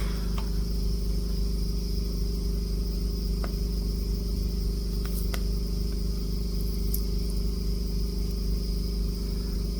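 Steady machine hum with a faint high whine, and a few faint light clicks scattered through it.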